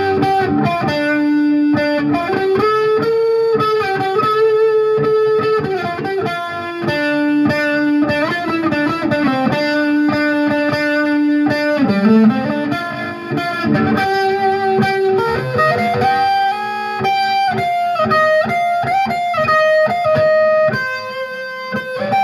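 Electric guitar being played: a riff of long held notes and changing pitches, with one note sliding down and back up about twelve seconds in.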